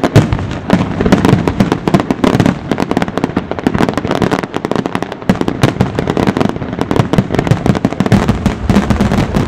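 Fireworks display: a dense, continuous barrage of rapid bangs and crackles.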